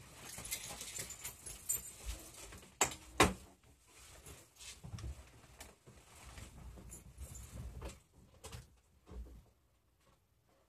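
Irregular handling noises of someone moving around an open car hood: rustling, light clicks and knocks, with two sharp knocks about three seconds in.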